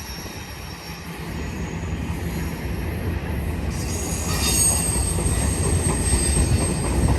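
Intermodal freight train's container-loaded well cars rolling past, the wheels rumbling on the rails and growing louder. From about four seconds in, a thin high squeal of steel wheels on the rail rides over the rumble.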